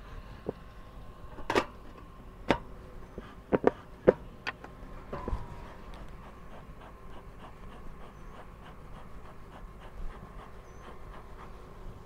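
Metal bee smoker being handled: a run of sharp metal clicks and clanks in the first five seconds as its lid is shut, then smoke being puffed. Under it runs a steady faint hum of honeybees around the open hive.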